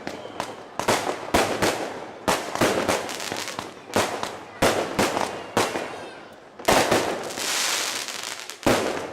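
Fireworks going off in a rapid series of sharp bangs, each followed by crackling. A sustained crackling hiss runs through the second half, with another bang near the end.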